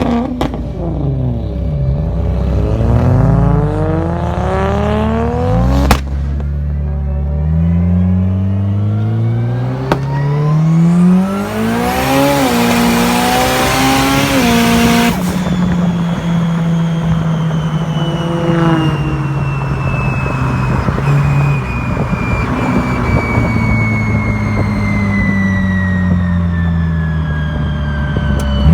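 A car engine accelerating hard, its pitch climbing steadily, then again after a sharp click about six seconds in. About twelve seconds in, a loud hiss lasts about three seconds. The engine then holds a steadier note under a thin whine that slowly falls in pitch.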